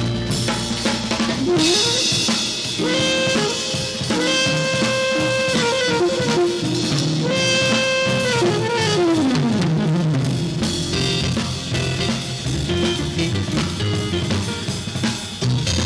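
Live jazz from a drum kit and an electric keyboard: the drums and cymbals keep a busy beat while the keyboard holds long brass-like notes that slide up and down in pitch.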